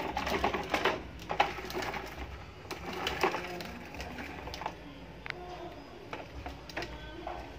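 A large plastic toy dump truck rolled across stone paving. Its plastic wheels rattle and the small toys loaded in its bed clatter, with a few sharp plastic knocks. The clatter is busiest in the first few seconds and thins out after.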